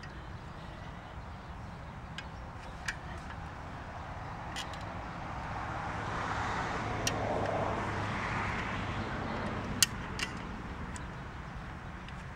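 Cable come-along lever winch: a handful of sharp metallic clicks spaced well apart, as its ratchet pawls are released and re-engaged during a let-down under tension. A passing vehicle swells and fades in the middle.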